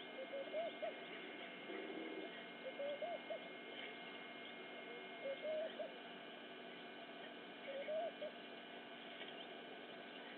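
A bird calling four times in short hooting notes, roughly every two and a half seconds, over a steady faint hiss.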